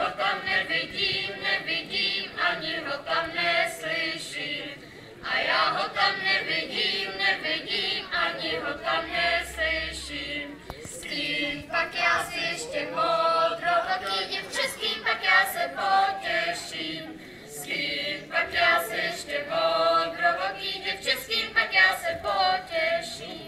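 A group of children singing a folk song together, unaccompanied, in phrases with short breaks between them.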